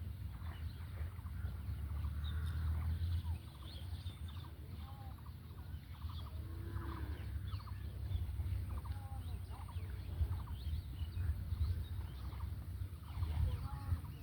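Birds calling, with scattered short chirps and rapid pulsed calls, over a steady low rumble.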